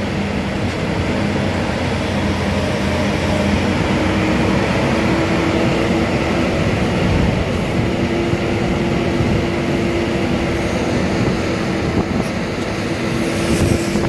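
Manitou telehandler's diesel engine running steadily under load as the machine handles wrapped silage bales, with a sustained hum whose pitch rises slightly about five seconds in and again around eight seconds.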